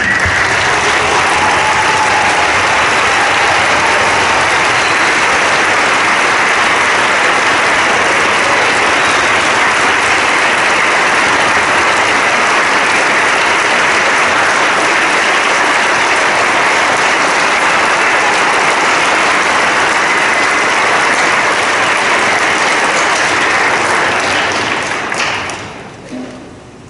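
Concert audience applauding steadily, dying away near the end.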